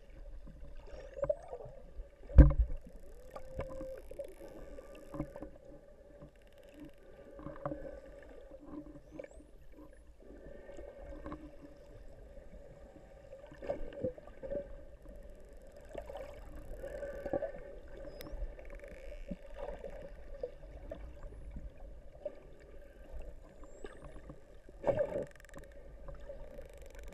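Underwater sound among a pod of bottlenose dolphins: a steady droning hum under bubbling, rushing water. There is a loud knock or splash about two seconds in and another near the end, and now and then faint high whistles glide upward.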